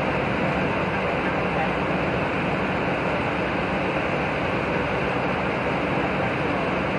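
Steady din of idling bus engines with the murmur of people's voices around them.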